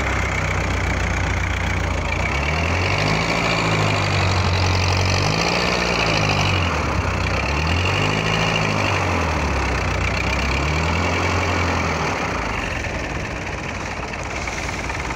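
Fishing boat's engine running, its pitch swinging up and down several times in the middle, over the rush of breaking waves and surf.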